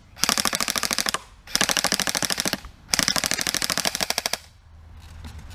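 Airsoft rifle firing on full auto: three rapid bursts of about a second each, separated by short pauses, each a fast run of evenly spaced shots.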